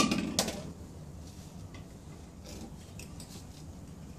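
Aluminium beer cans clattering onto concrete ground: two hard metallic knocks in the first half-second with a short ring, then a few light taps as the cans are handled.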